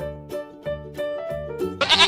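Children's backing music with a steady beat and plucked notes; near the end a goat's wavering bleat begins.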